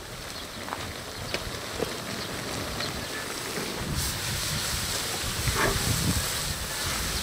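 Braised sea squirts and bean sprouts bubbling and sizzling in a cast-iron cauldron, with wind rumbling on the microphone. The hiss grows louder about four seconds in, and a spatula scrapes through the food near the end.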